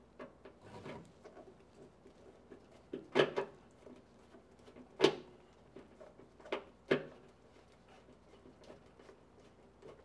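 Hand screwdriver backing self-tapping screws out of a water heater's sheet-metal top cover: light ticks of metal on metal, with sharp clicks about three seconds in, at five seconds, and twice close together near seven seconds.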